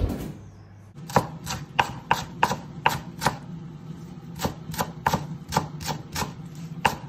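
A kitchen knife chopping on a cutting board in quick, even strokes, about three a second, starting about a second in and pausing briefly midway. A steady low hum runs underneath.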